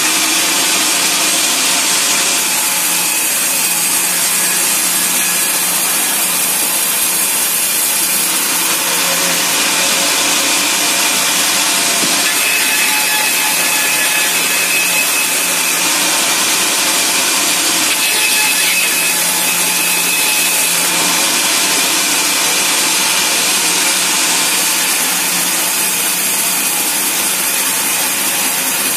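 Band sawmill blade cutting lengthwise through a teak log, a steady loud rasping saw noise with a faint whine that comes and goes in the middle stretch.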